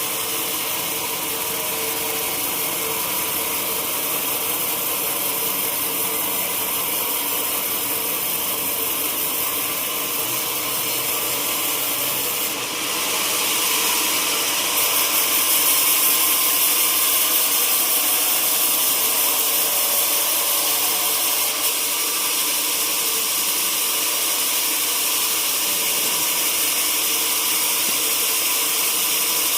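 Sawmill machinery running steadily: a constant hum over a dense hiss. About halfway through the sound grows louder and hissier.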